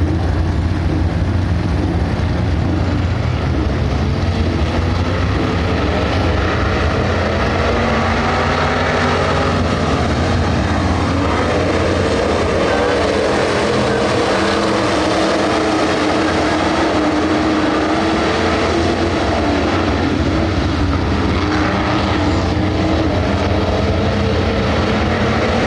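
A pack of dirt-track stock cars racing, many engines running hard together at high revs. Their pitch rises and falls as the cars lift and accelerate through the turns.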